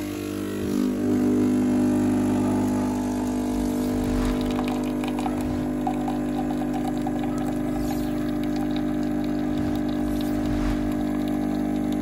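Nespresso capsule coffee machine brewing an espresso: its pump hums steadily while the coffee runs in a thin stream into a plastic shaker cup over ice.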